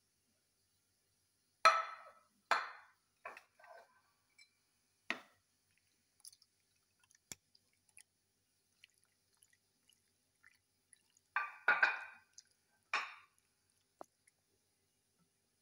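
A silicone spatula tapping and scraping against a glass bowl as cubes of set jelly drop into a glass dish. The knocks come one at a time, with a cluster about two seconds in and another around twelve seconds.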